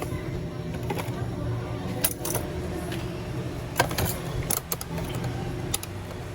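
A few light, sharp clicks and taps of small tools or parts handled on a workbench, spaced irregularly, over a steady low hum.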